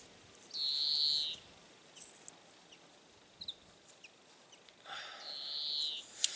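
Insulating tape pulled off the roll twice, each pull a squeal lasting about a second.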